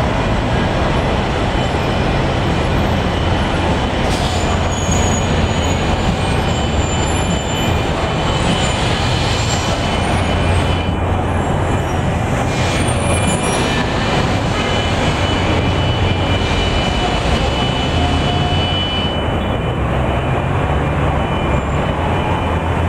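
Steady rumble of busy city street traffic, with a few faint high squeals mixed in.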